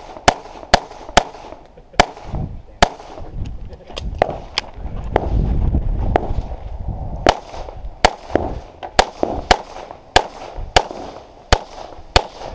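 A semi-automatic pistol fired in quick strings, about twenty sharp shots, many roughly half a second apart. There is a short break about five seconds in with a low rumble as the shooter moves to a new position.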